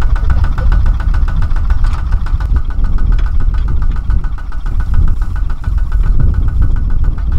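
Kubota ZT140 single-cylinder diesel engine on a two-wheel walking tractor, running steadily with an even, rapid firing beat.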